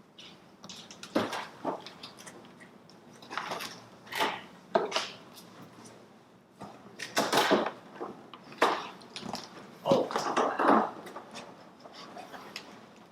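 Cardboard shipping box and packaging of an iMac Pro being handled and opened: scattered knocks, scrapes and rustles, a few louder clunks about 7 and 10 seconds in.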